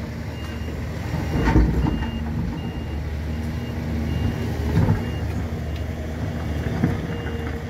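Dump truck's diesel engine running steadily while a reversing alarm beeps over and over, about three beeps every two seconds. Two thumps stand out, about a second and a half and five seconds in.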